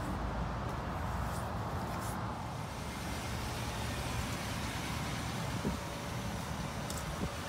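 2016 GMC Sierra 1500 Denali's V8 engine idling steadily, with a couple of light ticks near the end.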